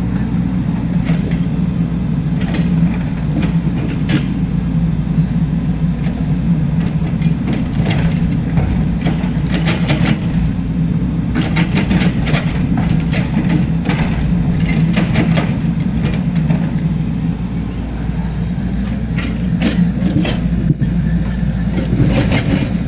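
Hydraulic excavator's diesel engine running steadily as it digs, with repeated sharp knocks and clanks from the bucket and arm working the soil, coming in clusters through the middle and near the end.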